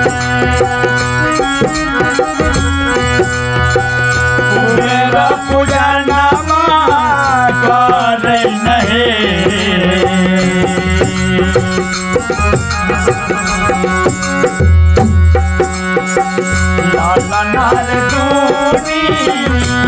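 Maithili sohar bhajan played live on harmonium, with a dholak beating a steady rhythm and small brass hand cymbals keeping time. Male singing comes and goes over the harmonium's held chords, clearest around five seconds in and again near the end.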